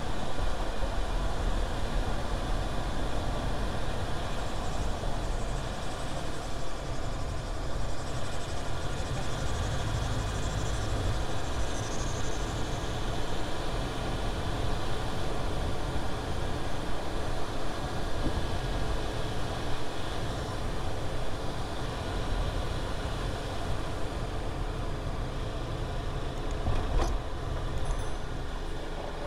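Car driving on the road: steady tyre and engine noise, with one short click near the end.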